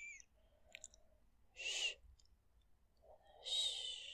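Soft, airy whispered breaths close to the microphone, like drawn-out 'shh' or 'hoo' sounds: one fading at the start, a short one a little before two seconds in and a longer one near the end. A small mouth click falls between them.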